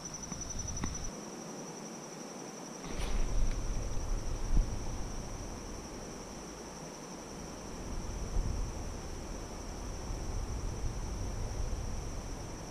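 Insects trilling in a continuous high-pitched chorus that holds steady throughout. Beneath it a low rumble on the microphone rises and falls, loudest around three to five seconds in.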